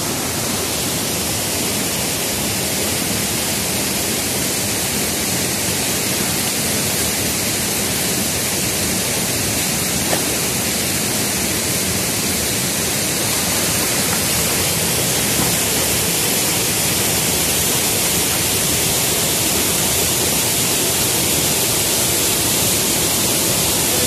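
Steady rush of a five-metre waterfall, a creek pouring into a deep pool.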